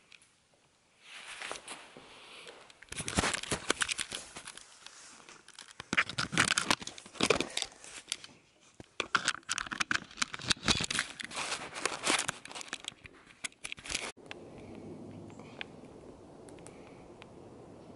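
Handling noise on a handheld camera's microphone: rustling and scraping of clothing and hands with many crackling clicks as the camera is carried. About fourteen seconds in it cuts off abruptly to a steady, quieter low rumble of outdoor ambience.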